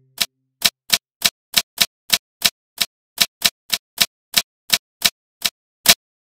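Typing sound effect: a run of about eighteen sharp keystroke clicks, roughly three a second, the last one the loudest.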